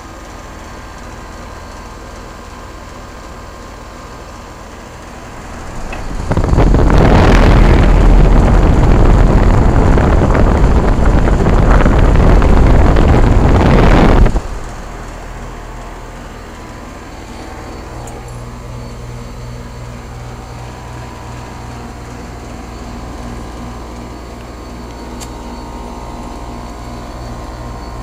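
2001 Trane XE1000 Weathertron 5-ton heat pump condensing unit running in cooling mode, a steady hum of compressor and outdoor fan. For about eight seconds in the middle, a loud rush of air as the fan's discharge blows straight across the microphone over the top grille, stopping abruptly.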